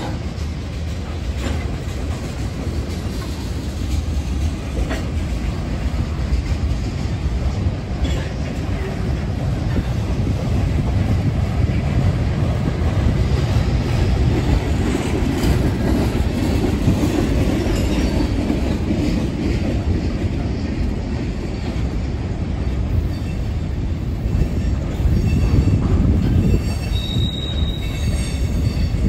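CSX freight train of tank cars rolling past: a steady low rumble of wheels on rail with a few sharp clicks. Near the end there is high-pitched wheel squeal.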